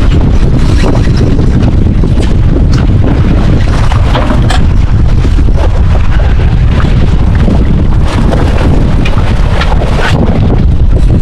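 Wind buffeting the microphone on a boat at sea, a loud steady low rumble, with a few sharp clicks and knocks.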